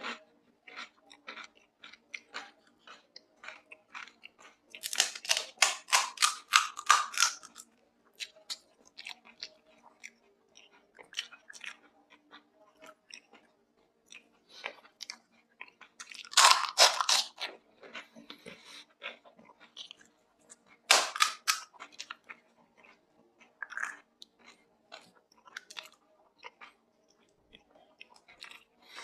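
Close-up eating: crisp pani puri shells crunching and being chewed, with three louder spells of rapid crunching (about five seconds in, about halfway through, and about two-thirds of the way through) and quieter wet chewing clicks between.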